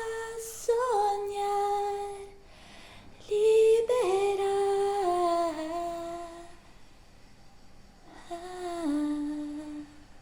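A woman's voice holding long, slowly stepping sung notes in three phrases, with short pauses between them, as a song draws to its close; the phrases carry no clear words.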